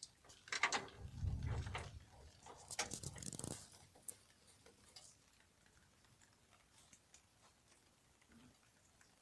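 Hands working with metal hydraulic valve parts: light clicks, knocks and rustling with a dull thud about a second in, a last sharp click a little after four seconds and another near five, then near silence.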